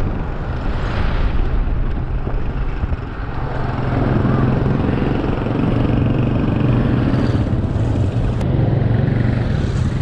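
Wind rushing over the microphone and road noise while riding an electric bike at speed. A steady low hum comes in about four seconds in and holds.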